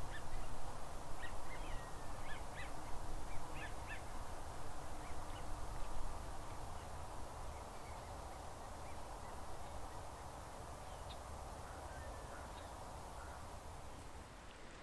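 Geese calling in the distance: a cluster of short honks in the first few seconds, then a few fainter calls later, over a steady low background rumble.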